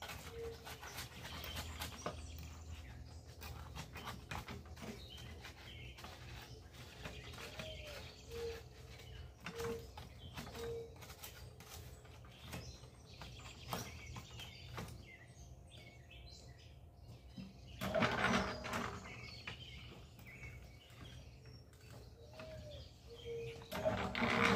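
A bird calling outdoors, short even notes about a second apart, over scattered knocks and scrapes from a stick being worked inside a small portable cement mixer's drum. Two louder rushes of scraping noise come about three-quarters of the way through and again at the very end.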